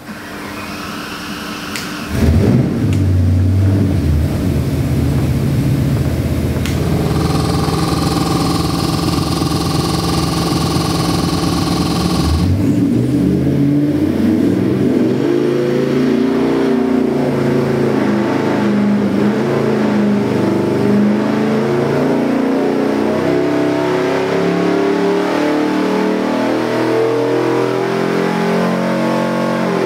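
Ford 351 Windsor V8 crate engine with a hydraulic roller cam running on an engine dyno. It comes in suddenly about two seconds in and holds a steady speed. From about twelve seconds in it makes a dyno pull under load, its revs climbing steadily from about 2,200 to over 5,000 rpm.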